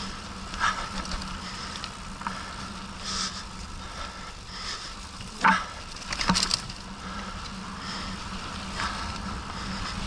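Mountain bike rolling over a stony, muddy dirt trail: steady tyre crunch and patter on gravel, with the bike rattling and knocking over bumps, loudest about five and a half and six and a half seconds in.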